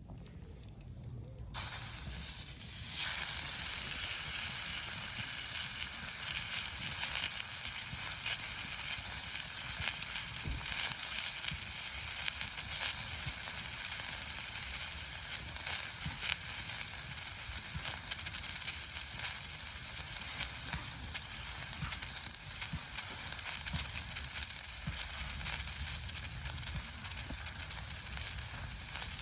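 Fillet steak sizzling on a hot iron griddle over a wood fire: a steady frying hiss with many small crackling pops, starting suddenly about a second and a half in.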